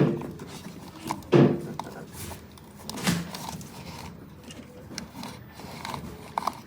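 Handling noises: three dull knocks about one and a half seconds apart, with light clicks and rubbing in between.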